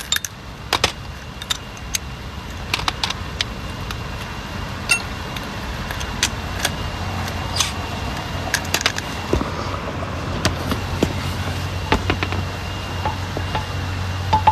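Scattered sharp metallic clinks and rattles of hand tools being rummaged through, over a steady low vehicle rumble that grows louder about halfway through.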